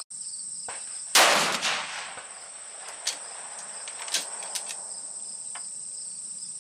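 Sako benchrest rifle in 6mm PPC fires a single shot about a second in, the report trailing off briefly. A few light clicks follow as the bolt is worked.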